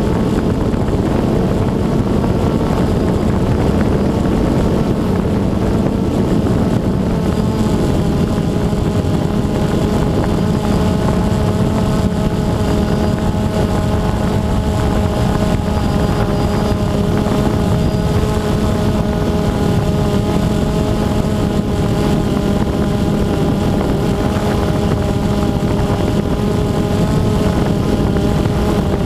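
DJI Phantom 2 quadcopter's four motors and propellers running steadily while it hovers, a buzzing hum of several tones that drift slightly in pitch. Heard through the onboard GoPro's microphone, with heavy wind rumble over it.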